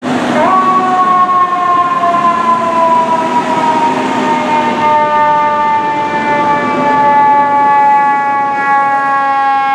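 FDNY fire engine's mechanical siren, a Federal Q-type: it winds up sharply about half a second in, then slowly coasts down in pitch as its rotor spins down.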